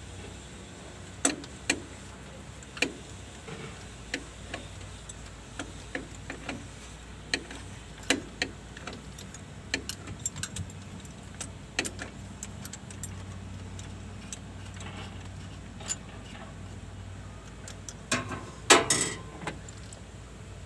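Hand tools clinking and tapping on metal engine parts in irregular sharp clicks, with a low steady hum underneath and a louder short clatter of metal near the end.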